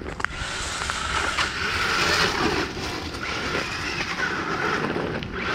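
FTX Zorro RC buggy running, its electric motor and drivetrain whirring as it drives, swelling and easing, with a sharp click about a quarter second in.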